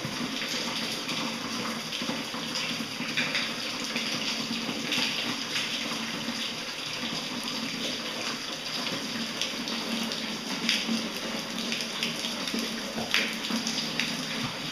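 Cave water running after two days of heavy rain: a steady rush of flowing water with scattered sharper drips and splashes, one louder near the end.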